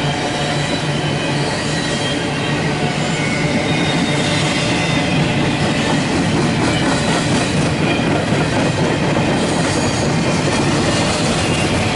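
Autorack freight cars of a CSX freight train rolling past at speed: a steady, loud noise of steel wheels running on the rails.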